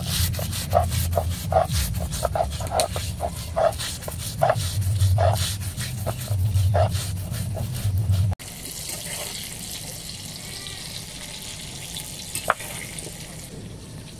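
Stone roller rolled and pressed back and forth on a stone grinding slab (shil-nora), crushing fried onions into a paste: rhythmic grinding strokes over a low rumble. About eight seconds in, this cuts to quieter scraping with a single click.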